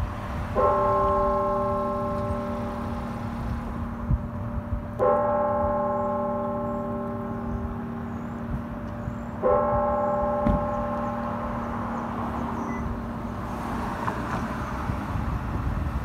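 A single church bell from a Schulmerich bell system tolls three times, about four and a half seconds apart. Each stroke rings out with several steady tones that fade slowly.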